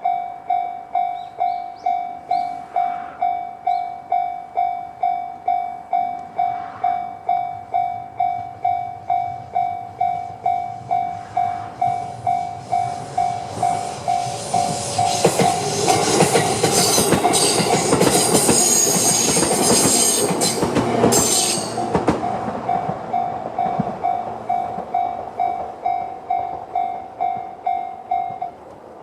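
Railway level crossing's JR-standard electronic warning bell ringing in a steady, repeating ding, while a JR 211 series electric train passes over the crossing about halfway through, its wheels rattling over the rails for several seconds. The bell stops just before the end.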